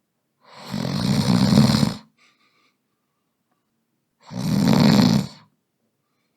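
A man snoring: two snores, each about a second and a half long, about four seconds apart.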